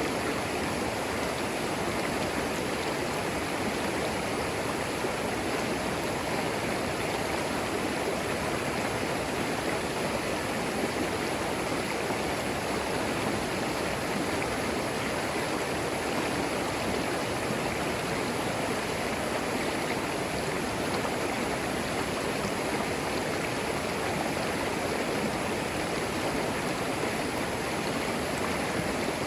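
Clear forest creek flowing over moss-covered stones: a steady rush and babble of running water.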